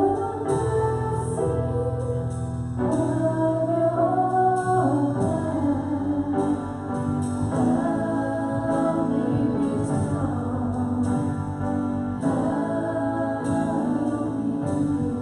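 Two women singing a worship song live into microphones, accompanied by piano and a band.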